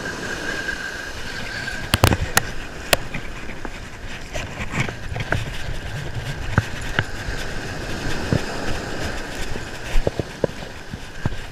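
A conventional revolving-spool surf reel being cranked to fight a hooked fish, with sharp knocks of hand and rod against the reel and camera, over wind buffeting the microphone and breaking surf.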